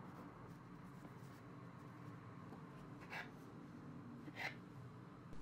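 Faint room tone with two brief soft scrapes, about three and four and a half seconds in, from a small knife cutting through the pinched layers of thin rolled baklava dough against a wooden board.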